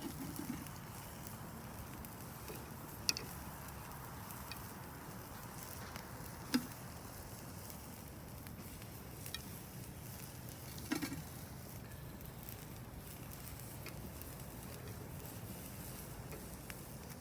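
Chicken thighs sizzling steadily on a Santa Maria grill grate over a charcoal and hardwood fire, with a few sharp clicks or pops scattered through.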